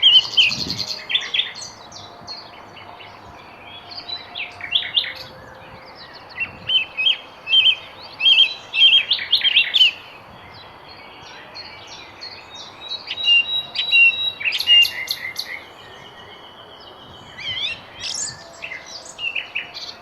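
Songbirds chirping and singing in bursts of quick high chirps and trills, with a few short pauses and a held whistled note about two-thirds of the way through, over a steady background hiss.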